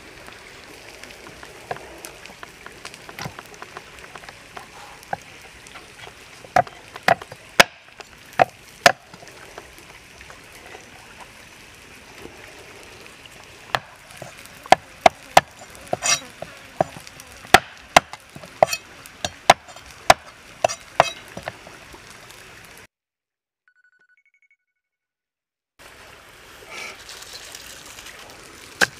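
Knife chopping on a wooden stump chopping block: sharp knocks in irregular bursts, a few about seven seconds in, then a longer, quicker run midway, over a steady background hiss. The sound cuts out to complete silence for about three seconds near the end.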